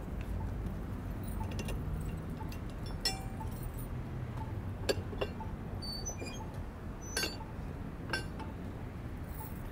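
Hand-throw railroad switch stand being thrown: a handful of sharp metallic clinks and clanks from the lever and switch rods, spaced a second or two apart.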